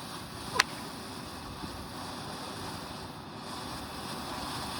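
Ground firework fountain spraying sparks with a steady hiss, with one sharp pop about half a second in.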